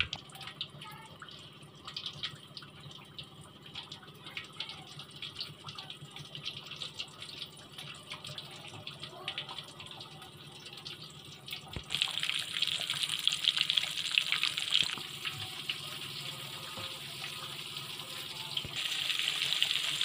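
Besan-coated rohu fish slices frying in oil in a pan, with a light crackle and popping. The sizzle grows louder about twelve seconds in and again near the end as more coated slices go into the oil.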